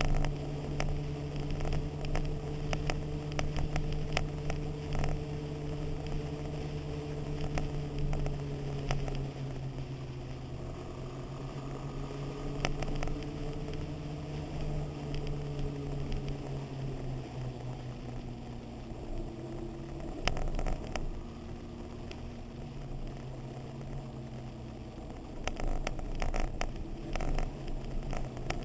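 Motorcycle engine running at a steady cruise, its note slowly dropping in pitch past the middle as the bike eases off, with frequent crackles on the microphone.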